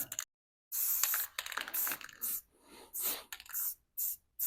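Aerosol spray-paint can hissing in short bursts, about seven in a row with short gaps between them, as letters and shapes are sprayed.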